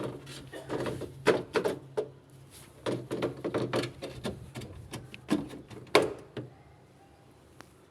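Irregular knocks and clatters of hard objects over a low steady hum. The hum cuts off about six and a half seconds in.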